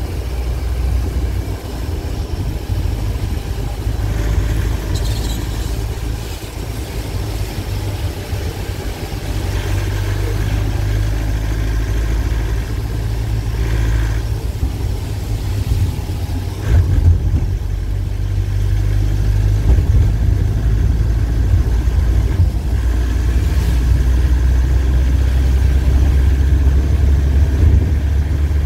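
Vehicle engine and tyre noise heard from inside the cab while driving on a wet road. It is a steady low drone that gets somewhat louder in the second half.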